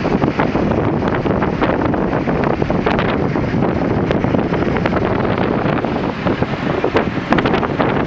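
Wind buffeting the microphone: a loud, continuous rumble with irregular crackles.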